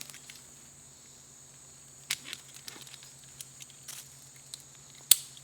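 Lineman's belt (tree-climbing strap) being passed around a tree trunk and fastened: faint rope and strap rustling with a few light clicks, then one sharp click about five seconds in as it is hooked up.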